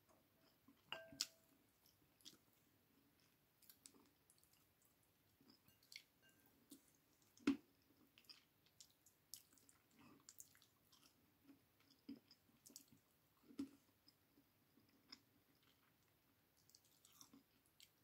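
Faint chewing and wet mouth sounds of a person eating chicken with her hands: scattered lip smacks and clicks as she picks at a chicken bone and sucks her fingers. The loudest smack comes about seven and a half seconds in.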